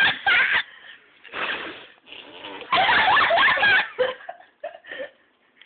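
A person making fake fart noises in a few sputtering bursts, the longest about halfway through, mixed with laughter.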